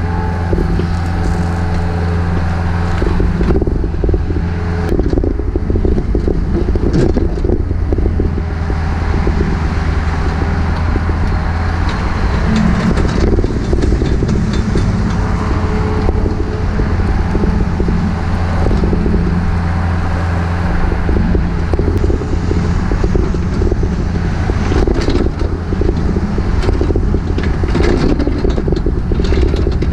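Takeuchi TB153FR compact excavator's diesel engine running under varying load while digging. Scraping, crunching knocks are heard over the steady engine drone.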